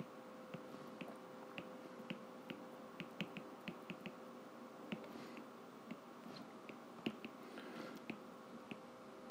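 Faint clicking and tapping of a stylus tip on a tablet's glass screen during handwriting, irregular clicks a few a second, over a faint steady hum.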